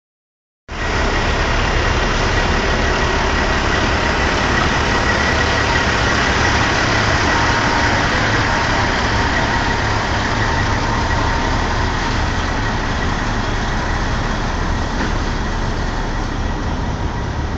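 Diesel semi-truck engines running close by: a steady, loud rumble with a thin, steady high tone over it, starting just under a second in.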